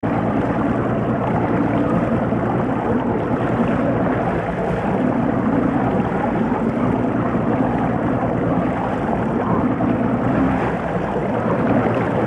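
A fishing boat's outboard motor running steadily, with wind and water rushing past.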